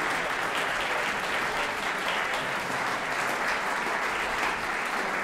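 Audience applauding steadily: many hands clapping in a dense, even wash.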